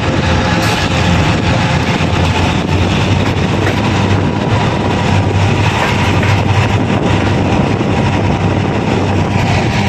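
Kuranda Scenic Railway train running along the track: a steady, continuous running noise with faint steady tones above it.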